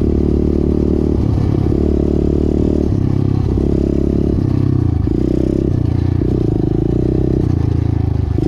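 SSR 125 pit bike's single-cylinder four-stroke engine running under way on a dirt trail, its pitch stepping up and down every second or so as the throttle and gears change, with a drop in pitch near the end.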